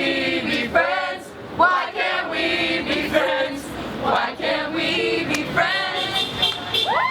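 A group of people singing together in chorus, with women's and men's voices in short repeated phrases.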